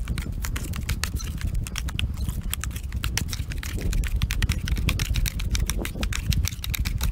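A drywall taping knife scraping and clicking against a metal mud pan: a fast, uneven run of short scrapes and taps over a constant low rumble.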